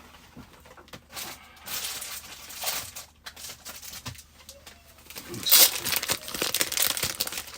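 Foil wrapper of a Pokémon card booster pack crinkling and tearing, with a few short rustles at first and a louder run of crinkling from about five seconds in.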